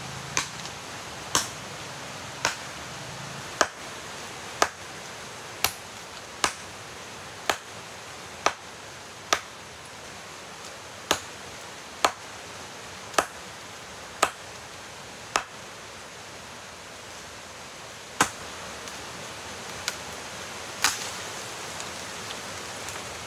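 A blade chopping into a small tree trunk, sharp strokes about one a second with a short pause partway through, over a steady rushing background.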